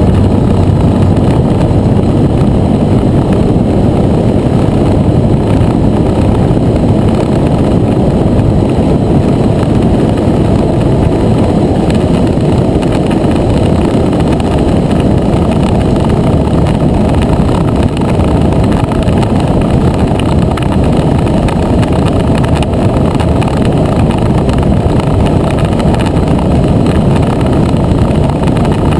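Steady wind rush on a scooter-mounted microphone while riding at road speed, with the motor scooter's engine droning underneath.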